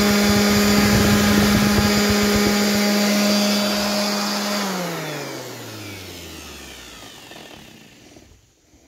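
Electric palm sander running at a steady speed, then switched off about four and a half seconds in, its motor winding down with a falling pitch and fading over the next three seconds.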